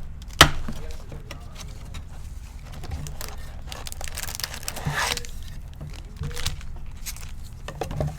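A sealed box of trading cards being opened: wrapping tearing and crinkling and cardboard being handled, with a sharp snap about half a second in.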